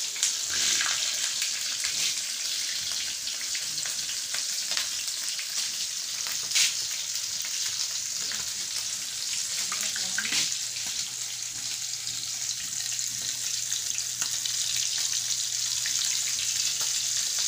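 Dalagang bukid (redbelly yellowtail fusilier) halves deep-frying in hot oil in a pan, with a steady sizzle and a few sharp pops, the loudest about six and a half seconds in. The fish is frying over a high gas flame, enough to char the tails slightly.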